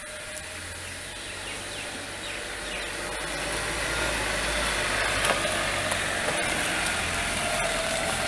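Vehicle engine and tyres on a gravel drive, getting louder over the first few seconds as the vehicle comes close, then running steadily.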